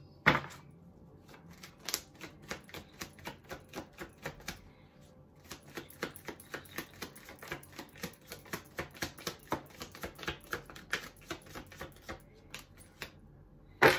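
Deck of tarot cards being shuffled by hand: a quick, irregular run of sharp card clicks and slaps, about three to four a second, with a short pause around the middle.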